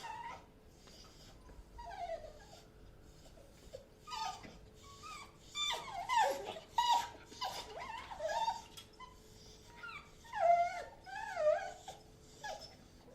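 Excited dogs whining: bursts of high whines that waver up and down in pitch, coming in clusters with short gaps between them.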